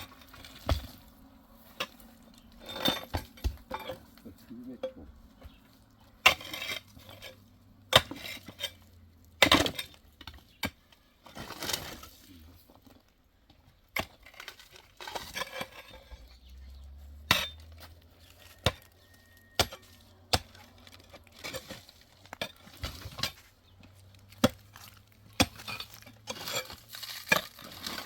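Irregular clinks and knocks of hard objects striking one another, sharp and scattered with uneven gaps, over a faint low hum.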